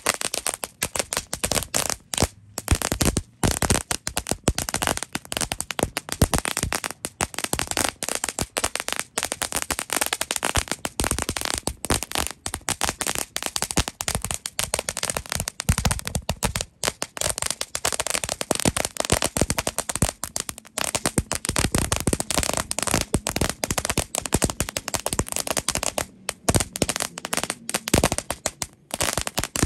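Three Cajun Crackler noisemaker fireworks burning together, giving a dense, unbroken stream of rapid crackling pops.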